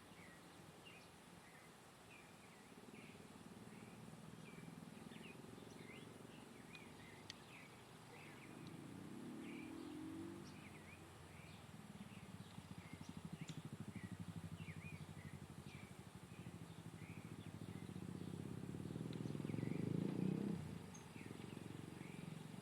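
Small birds chirping, many short high calls repeated throughout. Beneath them a low rumble swells twice, loudest near the end.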